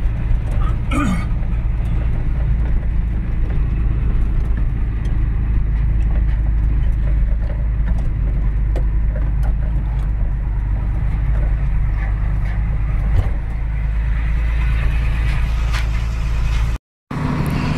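Truck engine and road noise heard from inside the cab while driving on a gravel road: a steady low rumble with a few faint knocks.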